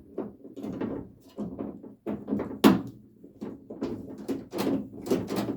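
1968 Camaro door latch mechanism being worked by hand: a string of metal clicks and clunks, with one loud clunk about halfway through as the latch snaps shut.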